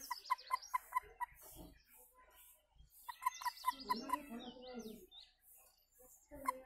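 Toad grasped in the hand giving its release call: runs of short, evenly spaced chirps, about four or five a second, in three bursts, near the start, about three seconds in and at the very end.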